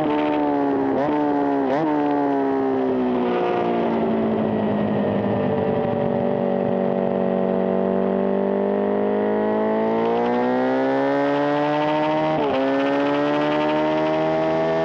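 Honda CB750 racing motorcycle's inline-four engine under load on track. Its note breaks twice early on, falls steadily for several seconds as the bike slows, then climbs again, with a gear change near the end.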